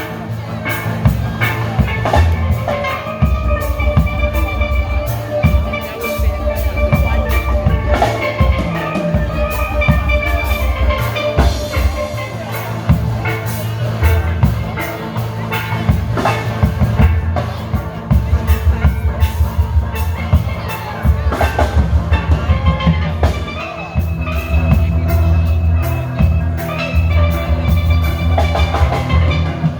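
Steel band playing live: steel pans carrying the melody over a drum kit and bass with a steady beat.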